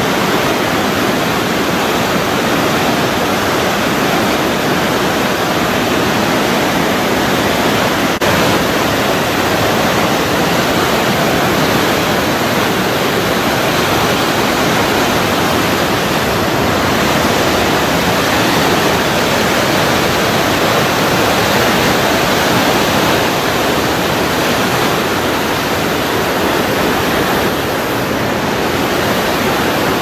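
Loud, steady rush of fast-flowing white water, an even unbroken noise.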